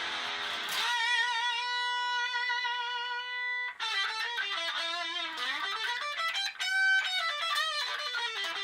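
Electric guitar played through a Raizin overdrive/distortion pedal. A chord rings at the start, then a long sustained single note with vibrato, then a lead line with string bends and a high held note.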